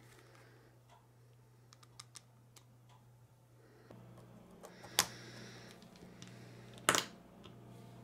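Small plastic parts of a snowblower chute-control joystick being handled: light clicks and taps as the circuit board comes out of its housing and a small screwdriver works at the switches, with two sharper clicks in the second half.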